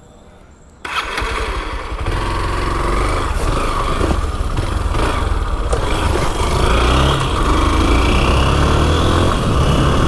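Motorcycle engine starting up about a second in and then running loudly as the bike pulls away and rides, the sound getting louder about two seconds in.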